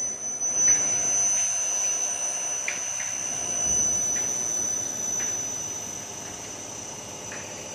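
Paldo PTD-32 drilling and tapping machine running, its 2 hp inverter-driven motor giving a steady high-pitched whine over a machine hum, with a few faint ticks; it gets somewhat quieter about three-quarters of the way through.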